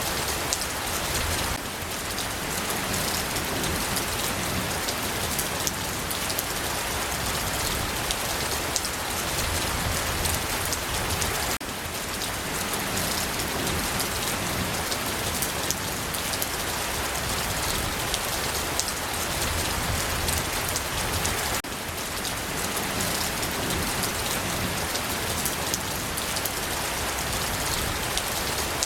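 Steady rain falling on a surface, individual drop hits heard within a continuous hiss. The level dips slightly for a moment about every ten seconds.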